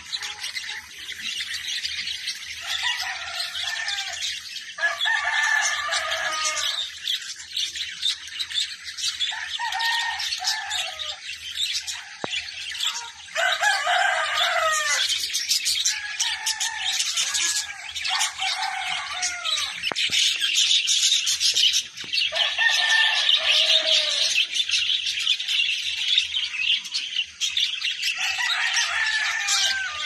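A flock of budgerigars chattering and chirping without pause. About eight times, a louder, lower bird call lasting a second or two cuts in over the chatter.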